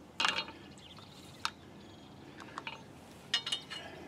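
Light metallic clinks and taps in four short bursts about a second apart, some with a brief ring: a steel lug nut being handled against the wheel studs of a freshly fitted brake rotor.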